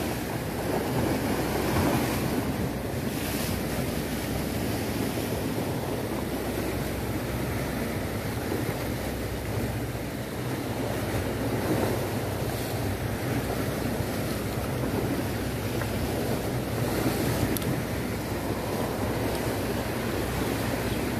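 Sea waves washing against shore rocks, with wind buffeting the microphone.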